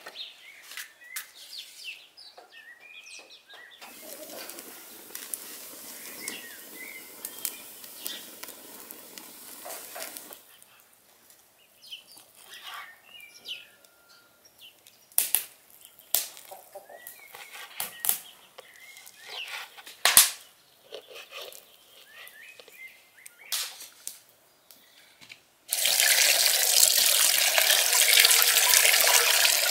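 Light knocks and clatter of handling kindling and a knife cutting lamb offal on a wooden board, with sharp knocks through the middle. About 26 s in, water from a tap gushes loud and steady into an aluminium bowl as pieces of meat are rinsed by hand.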